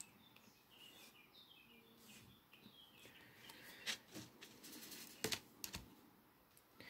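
Quiet light clicks and taps of a diamond painting drill pen picking up resin drills from a plastic tray and pressing them onto the canvas, with a few sharper clicks in the second half.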